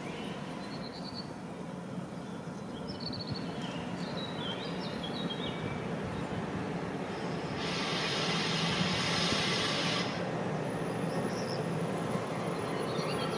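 Low rumble of an approaching train, slowly growing louder, with birds chirping in the first few seconds. A steady hiss comes in for about two seconds in the middle.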